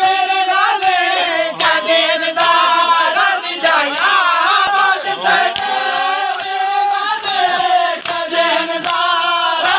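A group of men chanting a noha, a Shia mourning lament, in unison, led by a reciter reading from a sheet. A few sharp hand strikes stand out among the voices.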